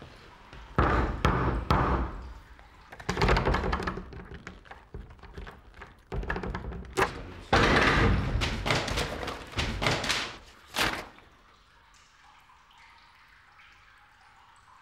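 Loud, irregular banging and thudding against the walls of a toilet cubicle, in several bursts, that stops abruptly about eleven seconds in.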